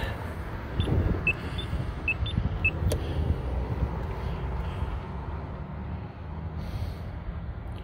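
Wind buffeting the microphone: a steady low rumble. There are a few short high chirps in the first three seconds and a single sharp click about three seconds in.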